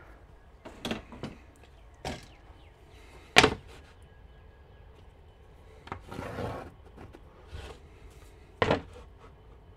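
Scattered knocks and clicks of hand tools handled against a plywood wall while marking it out, the sharpest about three and a half seconds in. A brief scraping rustle comes around six seconds in.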